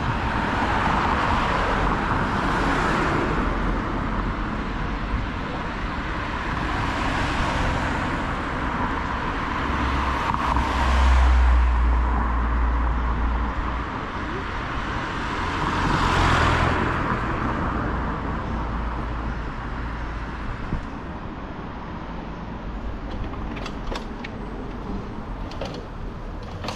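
Street traffic passing, with vehicles swelling and fading by one after another. A heavy vehicle's low rumble rises to the loudest point about ten seconds in, and a few light clicks come near the end.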